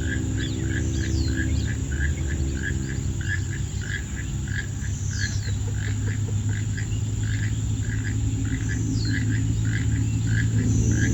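Frog calling in a steady, even series of short notes, about two to three a second, over a constant high-pitched insect drone. A short falling whistle comes about every four seconds, and a low rumble runs underneath.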